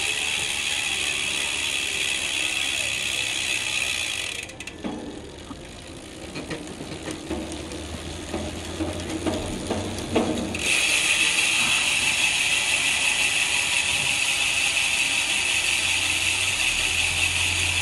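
Weapon Animal Pro rear hub's ratchet freehub buzzing steadily as the rear wheel coasts, after a year of use with no servicing. For about six seconds in the middle the buzz drops away to a quieter, lower running sound while the cassette is turned and the ratchet is engaged. The buzz then returns, louder.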